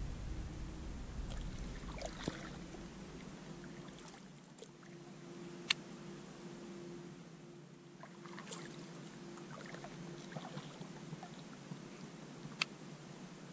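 Kayak paddling: the paddle dipping and pulling through the water, water trickling off the blades, and a few sharp clicks.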